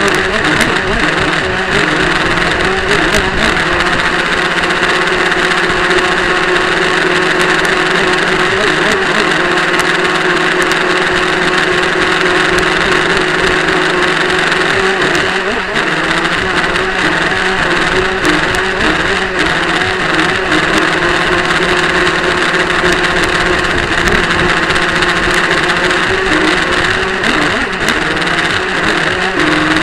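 Motor of a radio-controlled CC Lee Victory powerboat running steadily while the boat is under way, heard close up through a tiny keychain camera on its deck.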